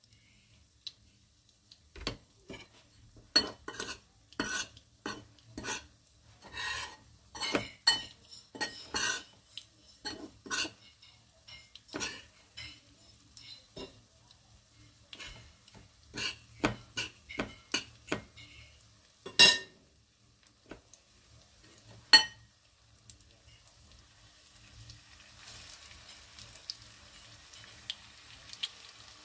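A metal fork scraping and tapping against a bowl of breadcrumbs in many short strokes as a chicken piece is coated, with two sharp clinks about two-thirds of the way through. Near the end a faint, steady sizzle of breaded chicken frying in hot oil rises.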